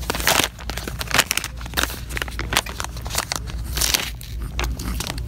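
Soft plastic wrapper of a baby-wipes pack crinkling and crackling as it is handled and its flip-top lid is worked, in many short irregular crackles.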